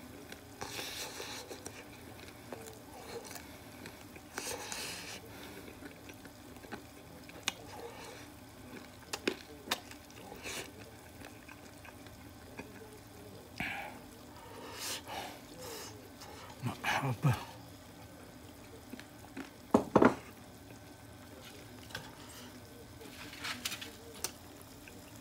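Quiet eating and handling sounds: scattered small clicks and crunches while freshly fried karaage is tasted, with two short low hums of the voice past the middle.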